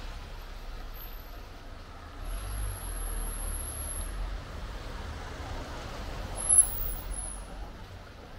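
Town street traffic: a motor vehicle's low engine rumble over general street noise, with very high, thin squeals twice and a sharp peak about six and a half seconds in.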